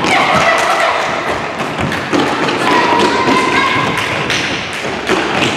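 Quick thuds and taps of children's footsteps running and landing on a sports hall floor. Twice, high drawn-out children's calls ring over them.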